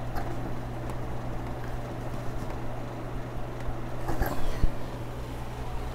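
Metal screw clamp of a microphone arm stand being hand-tightened against a desk edge: low rubbing and handling noise, with a few small knocks about four seconds in.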